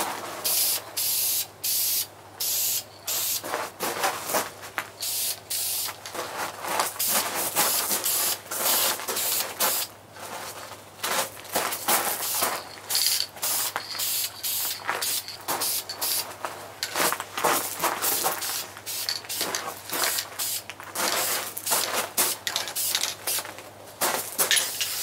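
Aerosol can of VHT heat-resistant engine enamel spraying with a loud hiss, in many short bursts that stop and start every second or so, as light coats go onto carburetor parts.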